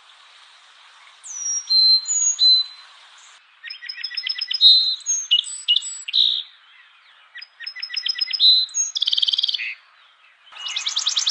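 Songbirds singing: short whistled notes, some sliding down in pitch, then rapid rattling trills mixed with clear whistles. Near the end a fast, continuous high trill starts.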